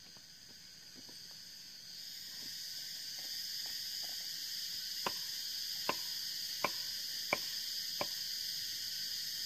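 Steady high-pitched insect chorus that swells over the first two seconds. In the second half, five sharp knocks about 0.7 s apart, a tool struck against a round wooden block.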